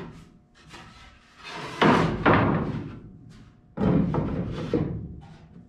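Pine floor boards knocking and scraping as they are laid and shifted into place in a pickup bed: two sharp knocks about two seconds in and a heavier knock near four seconds.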